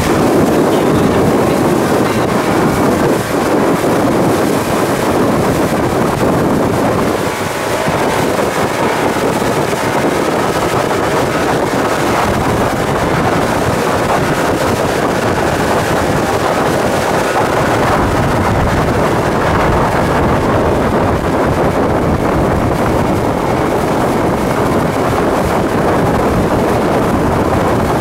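Speedboat under way at speed: its Yamaha outboard motor running steadily under the rush of water and spray from the wake, with wind buffeting the microphone.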